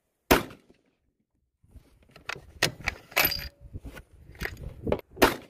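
Rifle being handled at the shooting bench. One sharp metallic click comes first, then after a pause a run of irregular small clicks and rattles, as the rifle is readied for zeroing.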